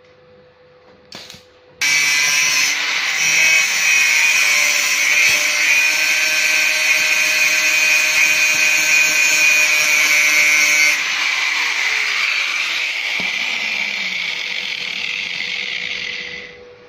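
Electric angle grinder with a flap disc grinding a weld on steel: it starts suddenly about two seconds in, runs loud and steady, then eases off from about eleven seconds and stops near the end.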